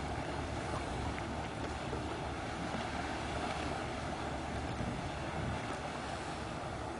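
Motorboat engine running steadily at low speed, with wind noise on the microphone.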